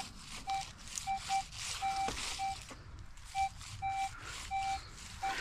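Metal detector sounding on a buried target: about ten short beeps at one mid pitch, irregularly spaced and some held longer, as the coil sweeps back and forth over it. The target reads as non-ferrous, with an ID number in the high 70s.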